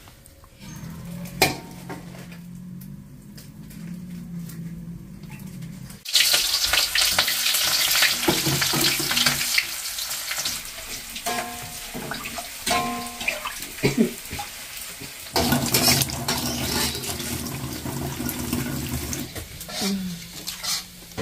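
Food frying in an aluminium wok on a gas stove: a loud steady sizzle that starts suddenly about six seconds in, with short scrapes of the spatula as it is stirred. Before it, a quieter stretch with a low steady hum and a single knock.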